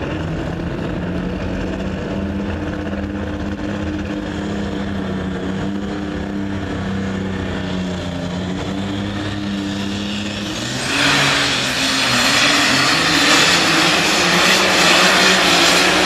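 Unlimited super stock pulling tractor idling steadily while hooked to the sled. About eleven seconds in, the throttle opens and the engine goes to full power, much louder and with a rushing hiss, as the pull starts.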